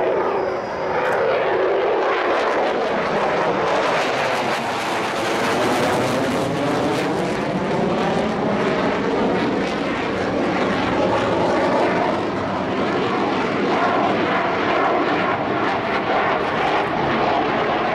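Chengdu J-10 fighter's single jet engine, an AL-31FN turbofan, flying past in a display pass: a loud, steady jet rush whose tone sweeps slowly up and down as the aircraft moves across.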